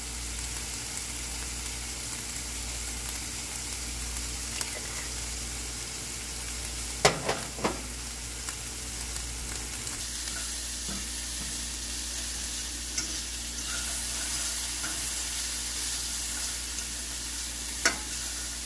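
Diced onions and sweet peppers frying in oil in a stainless steel pan, a steady sizzle. A fork stirs them, with a few sharp clicks against the pan about a third of the way in and once near the end.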